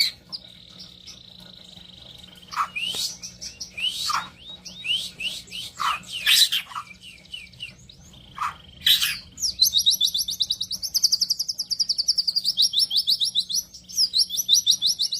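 White-rumped shama (murai batu) singing: a held whistle, then varied loud sweeping notes, and from about nine and a half seconds in a long, fast run of repeated sharp notes, the rapid-fire 'shots' that bird keepers call tembakan.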